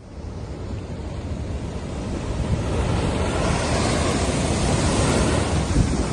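Steady rushing noise with a deep rumble, swelling over the first two or three seconds and then holding.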